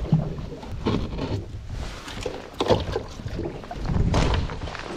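Water slapping and sloshing against the hull of a small boat, coming in irregular surges.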